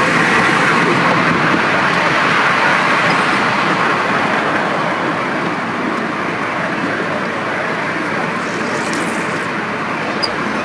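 Steady running noise of a 7.25-inch gauge miniature railway train heard from an open passenger carriage in motion: wheels rumbling along the rails. It eases slightly in level over the second half.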